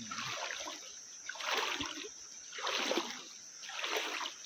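Footsteps wading through shallow river water, each stride splashing, about one step a second.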